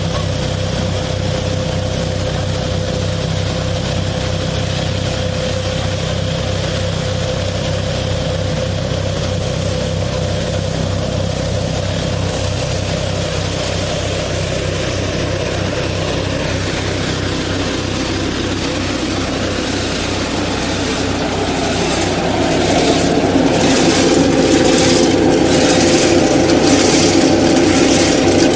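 Tractor engine running steadily, driving a KF-601 nut-harvesting machine with a steady whine from its fan. About 22 seconds in the sound grows louder and busier, with rapid clicking over the engine.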